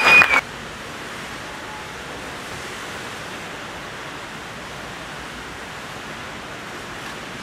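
Steady, even hiss of an indoor diving pool hall's background noise. A short burst of applause and voices cuts off abruptly right at the start.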